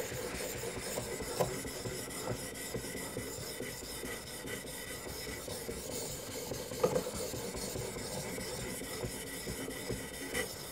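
Abrasive stone on a guided knife-sharpening system scraping along a knife's edge, a steady rasping with a few light knocks, the strongest about seven seconds in. The edge is being sharpened at a 22° setting.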